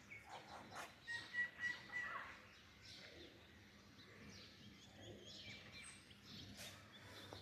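Faint birds chirping, a run of short high whistles loudest just after a second in, over low background noise.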